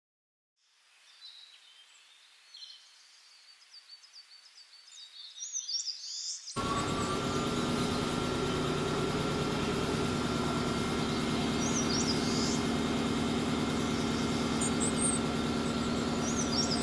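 Faint bird chirps over a low hiss. About six and a half seconds in, a steady whine and hum start suddenly: the battery motor and gears of a Plarail toy train running, its wheels on the plastic track. The same high chirp comes twice more over it.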